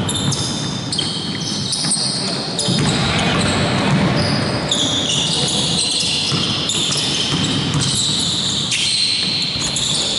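Basketball bouncing on a hardwood court, with many short, high-pitched squeaks of sneakers on the wooden floor as players run and cut, echoing in a large gym hall.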